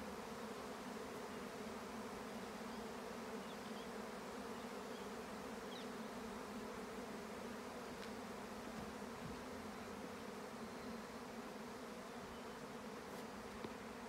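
A swarm of flying insects buzzing overhead: many wingbeats blending into one steady drone.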